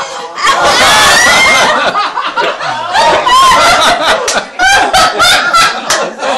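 Several people laughing together, starting with a loud, high-pitched burst of laughter about half a second in, then continuing in bouts of giggles and chuckles.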